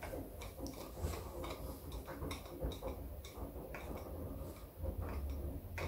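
Light metallic clicks of a spanner working on the tacho drive fitting of a Triumph Trident engine's crankcase as it is tightened, coming irregularly, about two or three a second.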